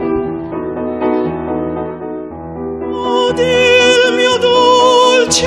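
Operatic female singing voice with instrumental accompaniment. Held accompaniment chords open the passage, and about three seconds in the voice enters on sustained notes with wide vibrato. A short hiss, like a quick breath, comes near the end.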